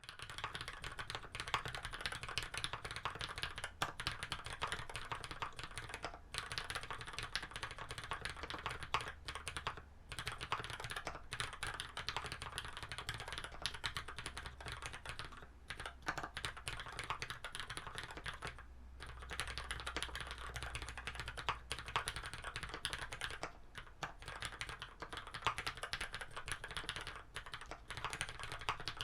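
Continuous fast typing on a custom mechanical keyboard with lubed Cherry MX Black linear switches in a brass plate and GMK keycaps: a dense stream of key clacks, broken by a few brief pauses.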